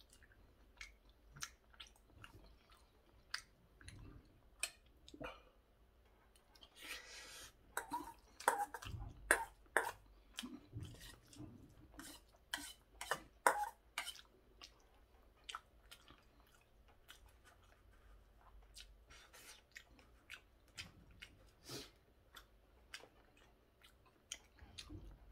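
A person chewing a mouthful of curry rice, with many wet mouth clicks and smacks. A metal spoon scrapes and taps in a stainless steel bowl, the clicks thickest in the middle.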